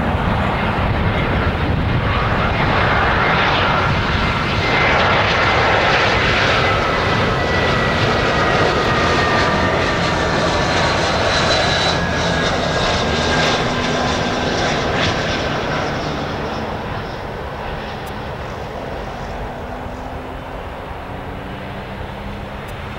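Airbus A320's IAE V2500 turbofans at approach power as the airliner passes close on final approach. A loud jet roar carries a whine that slowly drops in pitch as it goes by, then fades over the last several seconds as the aircraft moves away down the runway.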